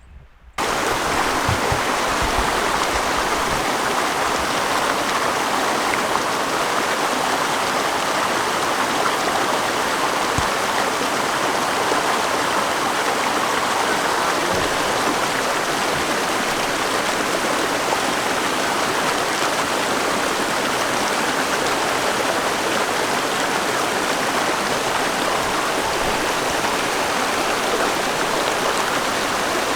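Creek water rushing steadily, cutting in abruptly about half a second in.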